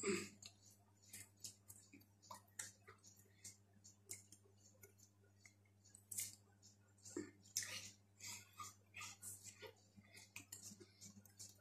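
Near silence with faint, irregular clicks and rustles from hands and arms moving, over a low steady hum.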